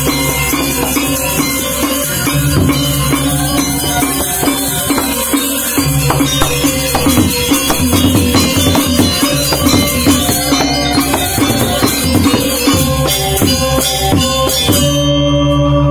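Balinese gong kebyar gamelan playing fast and loud: bronze metallophones and kendang drums with a jangling high clash over the deep notes of the gongs. About fifteen seconds in the playing stops and the bronze keys and gongs ring on.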